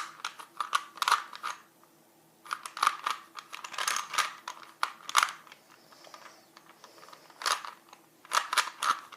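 A plastic 3x3x3 Rubik's Cube being turned by hand through a repeated algorithm: its layers click and rattle in quick bursts of moves, with short pauses between them.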